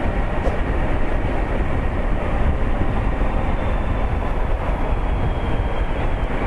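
Suzuki V-Strom 1000's V-twin engine running as the motorcycle rides along a road, mixed with steady wind and road rush on the microphone.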